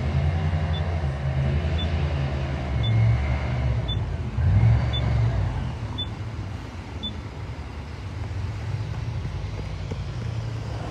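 Low, steady drone of Border Patrol airboat engines on the river, swelling briefly about three and about four and a half seconds in. A faint high tick comes about once a second through the first seven seconds.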